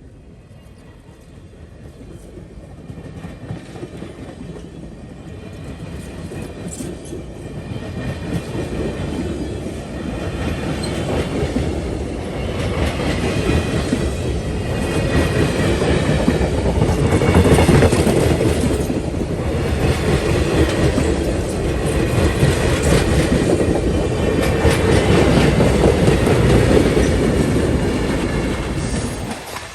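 Cuyahoga Valley Scenic Railroad passenger train running past on the rails. The rumble grows steadily louder over the first half as the train comes closer, and stays loud through the rest.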